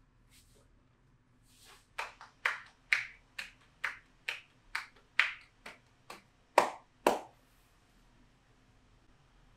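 Hands slapping a back in percussive massage strokes: about a dozen sharp slaps at an even pace of roughly two a second, starting about two seconds in, the last two the loudest.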